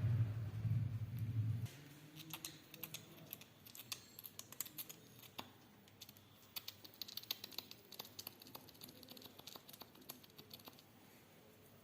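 A low hum stops suddenly about two seconds in. It is followed by many quick, irregular clicks and taps, the sound of hands working over the body during a massage.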